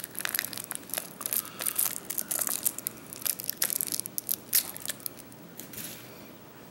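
An MRE cheese spread pouch of foil laminate being torn open by hand: irregular crinkling and crackling of the foil, thinning out near the end.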